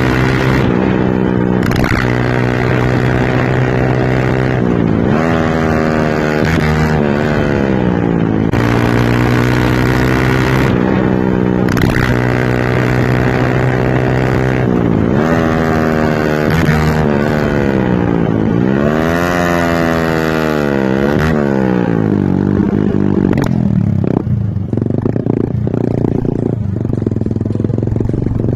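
Yamaha R15 v2's single-cylinder four-stroke engine running through an Akrapovic exhaust. It holds a steady rev, is revved up and back down several times, and settles lower near the end. A few sharp pops from the exhaust come through, which the owner calls a misfire.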